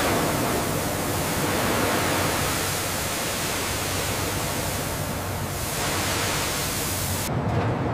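Steady, loud rushing noise over a low, even machine hum; the rushing cuts off near the end while the hum continues.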